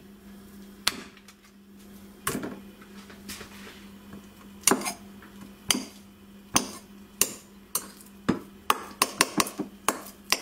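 A knife cutting a block of cream cheese in a glass mixing bowl, the blade knocking and clinking against the glass in sharp taps, scattered at first and coming quickly near the end.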